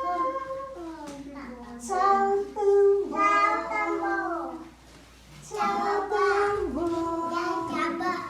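Children singing a song together in phrases, with a short pause about halfway through.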